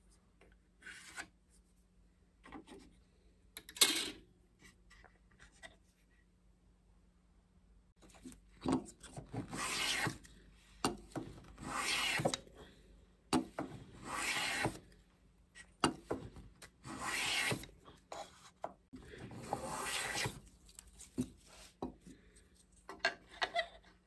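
A few light taps and knocks, then a small metal hand plane shaving a thin strip of wood in long strokes, about eight of them, one every second or two.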